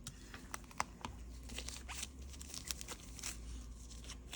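Crinkling rustles and small sharp clicks of plastic being handled by gloved hands as a replacement iPad screen is positioned, over a faint low hum.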